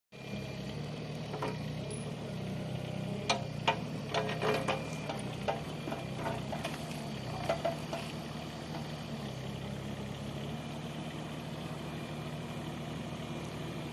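Mini excavator's diesel engine idling steadily, with a scatter of sharp clicks and knocks a few seconds in.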